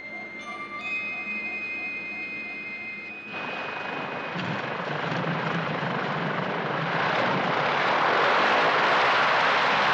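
A tense music cue of held tones for the first three seconds, then a sudden cut to a single-engine propeller light plane's engine running close by, growing louder as the high-wing tailwheel plane passes low over the strip.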